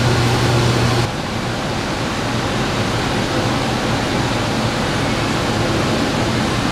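Steady loud rushing noise, like air from a fan or blower. A low hum under it stops abruptly about a second in.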